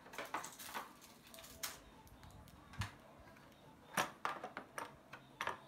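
Scattered clicks and light knocks of hand tools being handled in a plastic tool case: an adjustable wrench and small parts clicking against the moulded plastic trays, with a sharper knock about four seconds in.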